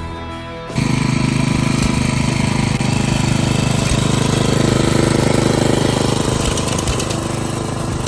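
An engine running steadily with a fast, even chatter of firing pulses, cutting in suddenly under a second in.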